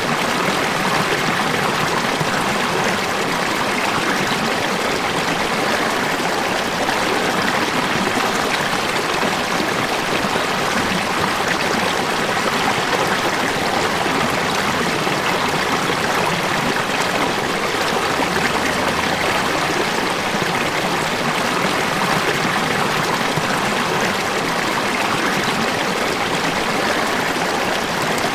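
Falling water rushing and splashing, steady and unbroken.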